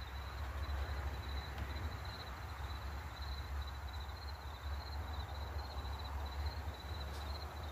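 Insects chirping in a steady, pulsing trill over a low, steady rumble.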